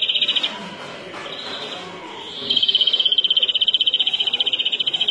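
European greenfinch singing: a loud, rapid trill that stops about half a second in, then, after a short pause, another long rapid trill from about halfway through.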